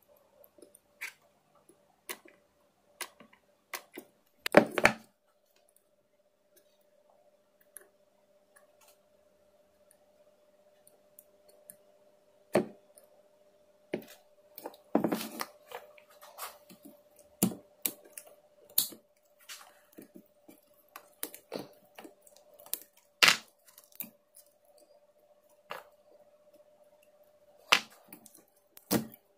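Scattered clicks, taps and knocks of small parts and tools being handled on a workbench, with a louder clatter about five seconds in, over a faint steady hum.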